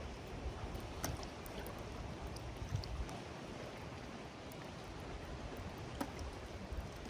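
Steady wash of sea water with a low rumble, and a few faint clicks, the clearest about a second in and near the end.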